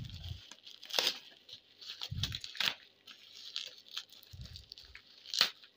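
Plastic parcel packing and bubble wrap being handled, crinkling with a few sharp crackles and some dull bumps of handling.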